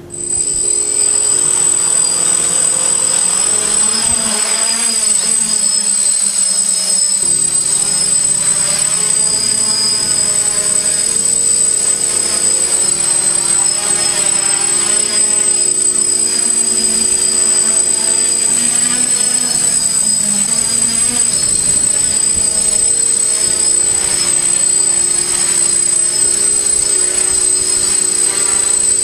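DJI F550 hexacopter's six brushless motors and propellers buzzing as it lifts off and hovers. Their pitch wavers constantly as the motors adjust, under a steady high whine.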